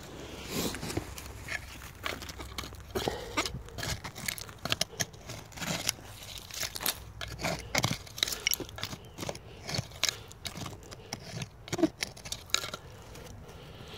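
Digging by hand with a tool in soil, roots and dry leaf litter. Irregular scraping and crunching strokes stop about a second before the end.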